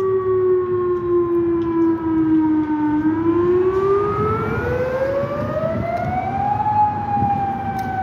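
Federal Signal Modulator outdoor warning siren sounding a slow wail for its scheduled monthly test, really loud. The tone sinks for about three seconds, climbs steadily to a high peak near seven seconds in, then starts to fall again.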